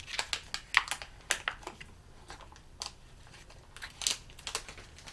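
Cardboard milk-carton blind box and its plastic packaging being opened and handled by hand: irregular crinkling, scraping and sharp clicks, the sharpest about a second in and again about four seconds in.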